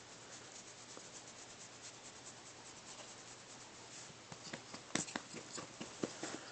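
Faint rubbing and scratching of a hand in a small dog's fur on a plush dog bed. About four seconds in, a quick run of sharper scratches and clicks starts as the dog squirms.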